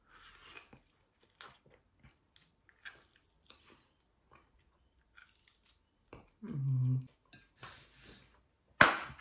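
Wet mouth clicks and smacks of someone biting and sucking on a lemon wedge, with a short hum about two-thirds of the way through. Just before the end, one sharp knock as the squeezed lemon peel is dropped onto a ceramic plate.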